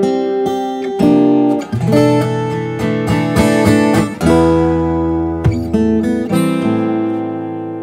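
Maton EBG808TEC steel-string acoustic guitar played fingerstyle: a plucked melody over bass notes, with a deep bass note about four seconds in that rings on under the melody.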